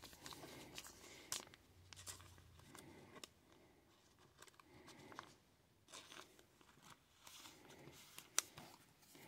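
Faint rustling and small clicks of a trading card being slid into a clear plastic card sleeve, with a sharper click near the end.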